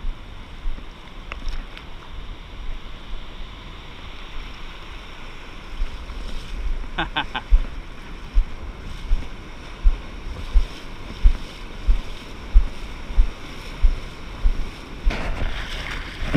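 Surf washing around the legs, with wind on the microphone of a body-worn camera. From about six seconds in come regular dull knocks, about three every two seconds, while the cast net is hauled in.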